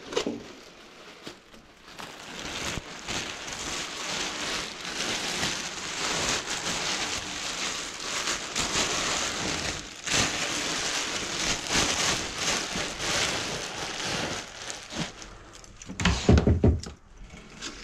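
Plastic sheet crinkling and rustling as it is handled and spread over a kitchen counter and sink, then a heavy thump near the end.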